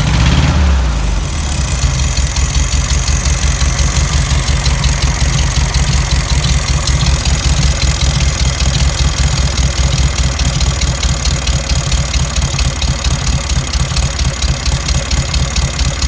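A 1971 VW Beetle's 1600 twin-port air-cooled flat-four running on a newly fitted carburetor: the revs come down in the first second or so, then it idles steadily with an even, rapid pulse. The owner says the engine has a knock, which he puts down to the pistons, con rods or head.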